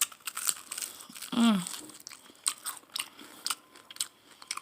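Crunchy bites and chewing on crispy fried chicken wings: a run of irregular sharp crackles, with a brief voiced hum about a second and a half in.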